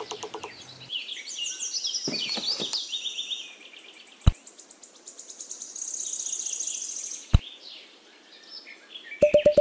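Songbirds chirping, with a fast high trill in the middle, and two sharp clicks about four and seven seconds in.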